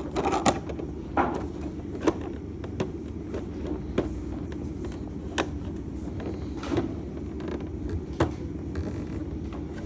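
Scattered clicks and light knocks of a plastic toy school bus and its small rubber figures being handled, about one every second, over a steady low hum.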